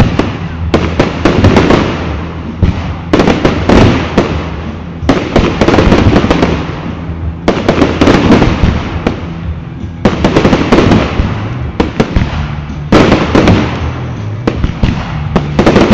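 A loud, continuous fireworks barrage: aerial shells bursting every second or two, each burst followed by dense crackling, over a constant low rumble.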